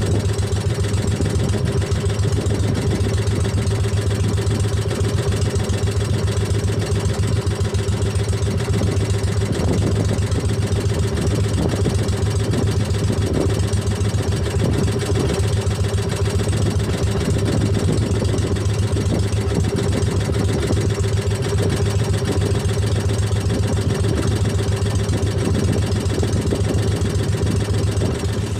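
Outrigger boat (bangka) engine running steadily at a constant speed while the boat is under way, an even drone with no change in pitch.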